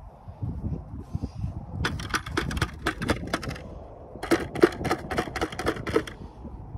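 Metal T-handle soil probe tapped rapidly against a plastic bucket to knock the soil core out, in two runs of quick clicking taps, about seven a second, each under two seconds long.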